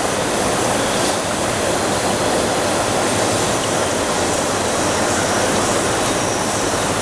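Steady, loud rushing noise of water circulation and aeration in a fish tank system.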